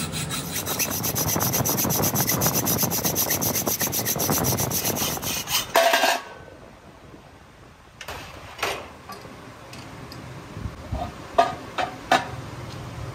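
Hand hacksaw cutting through a cast aluminium piston, quick even strokes, ending about six seconds in with a loud metallic clatter as the cut goes through. A few sharp metal knocks follow as the piston is handled.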